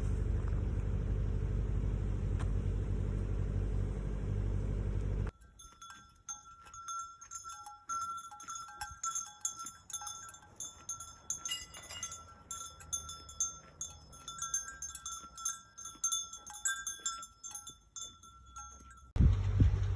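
A steady low rumble for about five seconds cuts off abruptly, giving way to metal bells clanking and ringing irregularly for about fourteen seconds; the rumble cuts back in near the end.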